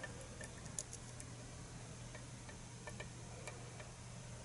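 A few faint, scattered clicks and ticks of a lock pick working the pins inside a pin-tumbler kick cylinder under tension, over a low steady hum.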